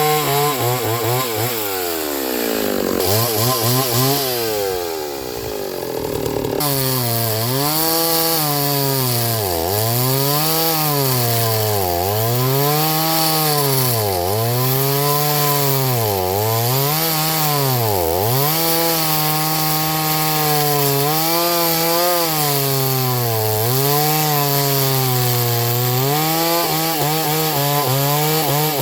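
Chainsaw cutting pine wood, its engine sagging under load and picking back up again and again, about every two seconds for a stretch, over the hiss of the chain in the wood. A few seconds in it slows more deeply for a few seconds; near the end it runs more steadily at high revs.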